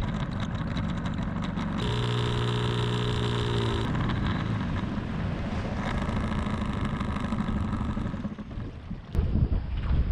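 A boat motor running with a steady hum, over wind noise on the microphone. The hum is strongest for about two seconds, starting around two seconds in.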